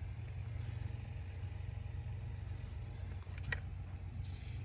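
A steady low engine hum, like an engine running at idle, with a single sharp click near the end.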